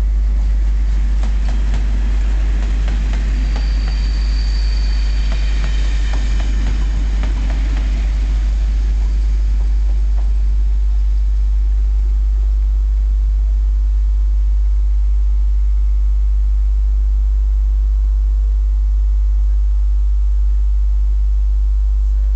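Class 37 diesel locomotive (English Electric V12) running slowly past at the head of a train, with wheels clicking over the rails and a brief high whine a few seconds in, then fading away as the train draws off. A steady low rumble lies under it throughout.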